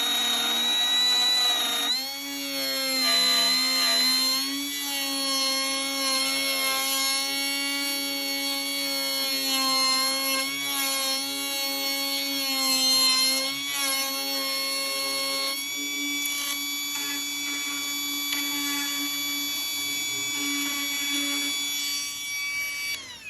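Ridgid cordless router running and cutting a hinge mortise in wood, its high whine dropping and wavering in pitch as the bit cuts. Near the end it is switched off and winds down with a quickly falling whine.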